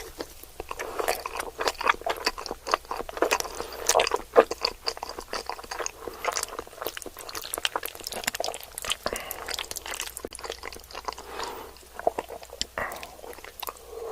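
Close-miked ASMR chewing: a steady run of crisp, irregular crunches and wet mouth clicks as food is eaten.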